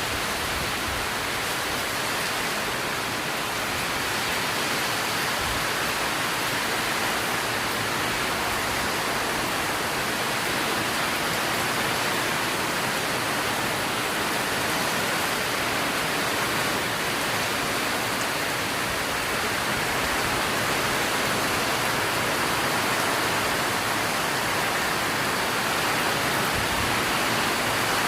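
Steady rushing noise of a strong windstorm, with no gusts or breaks.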